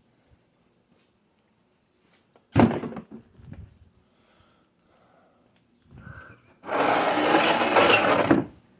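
A single loud knock about two and a half seconds in, then near the end a loud rushing noise of about two seconds that stops sharply.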